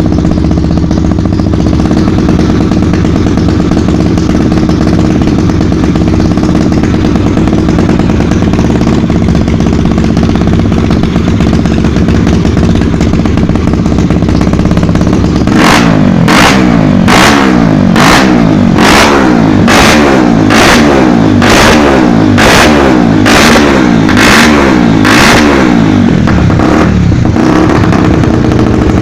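Honda Tornado's single-cylinder motorcycle engine running at steady revs, then about halfway through revved hard again and again, about one and a half times a second, each rev ending in a sharp crack from the exhaust. After about ten seconds it settles back to steady running.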